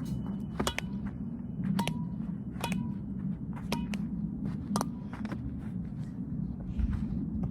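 Badminton racket striking a shuttlecock: sharp hits about once a second, over a steady low hum.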